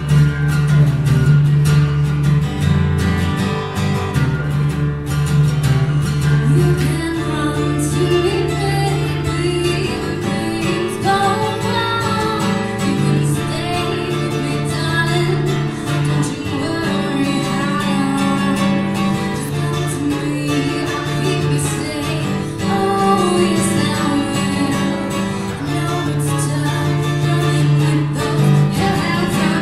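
Steel-string acoustic guitar strummed, with a woman singing over it: a live acoustic duo song.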